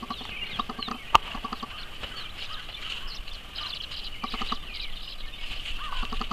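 Birds calling outdoors: many short chirps over a steady chorus, with clusters of repeated clucking calls and a single sharp click about a second in.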